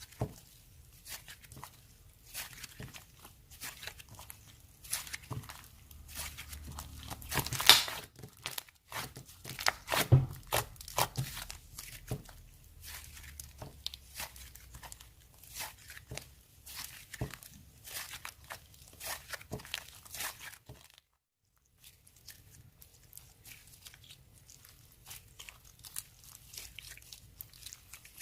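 Slime being squished and stretched by hand, with irregular sticky clicks and crackles. The loudest crackles come about eight and ten seconds in, and the sound breaks off briefly a little after twenty seconds.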